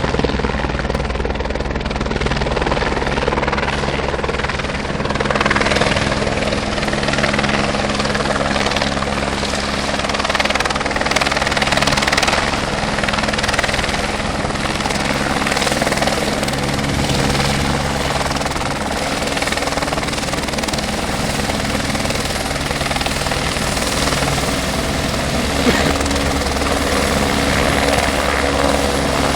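Construction helicopter running close by, a steady loud rotor chop with engine drone that holds evenly throughout.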